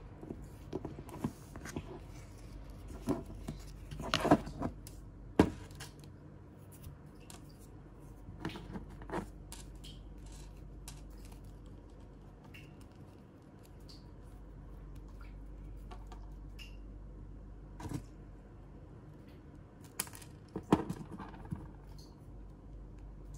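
Small plastic toy pieces and a plastic capsule being handled on a table: scattered clicks and taps, with a few louder knocks, over a low steady hum.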